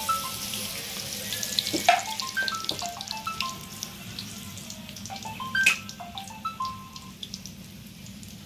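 Bánh tép batter fritters deep-frying in hot oil in a steel wok: a steady sizzle with crackling spatters, and a couple of sharper clicks about two and five and a half seconds in. A soft melody of short falling notes plays in the background.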